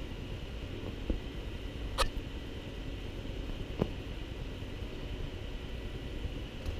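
A kitten's paws batting and striking right at the camera and couch cushion: three sharp knocks or taps about one, two and four seconds in, over a steady low rumble.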